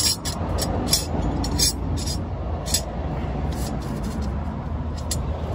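A run of short, sharp crinkles and clicks as cooking supplies are handled while a meal is prepared, over a steady low rumble.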